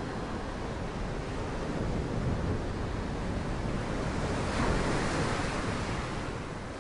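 Ocean surf rolling onto a beach, a wave swelling and breaking about four and a half seconds in, then the sound begins to fade near the end.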